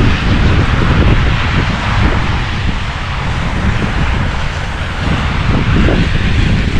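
Strong snowstorm wind buffeting the microphone: a loud, ragged low rumble under a steady rushing hiss.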